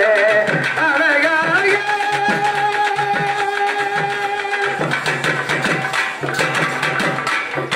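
Live South Indian folk music for a karakattam dance: a hand-played barrel drum beats a steady rhythm under a melodic line, which holds one long note for about three seconds near the middle.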